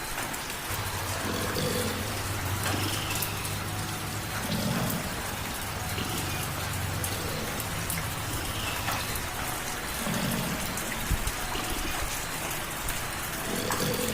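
Light rain falling steadily with a patter of single drops, and a domestic cat purring close by, a low rumble that swells and eases every few seconds.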